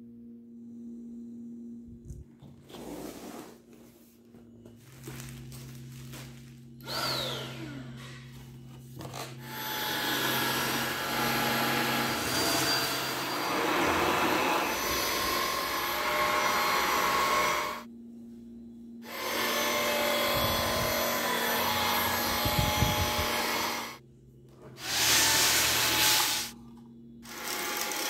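Eufy cordless stick vacuum cleaner running in several long stretches broken by short gaps. The first several seconds hold only quieter handling noises.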